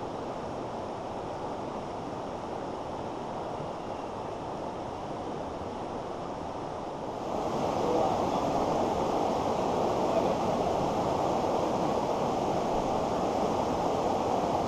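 Mountain stream water rushing over rocks, a steady noise without a break. It gets louder about seven seconds in, where the stream runs as white-water rapids.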